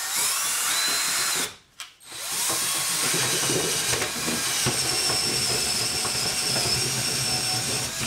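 Cordless drill turning a long auger bit down through the OSB subfloor: a short run that stops after about a second and a half, then a longer steady run with a high whine.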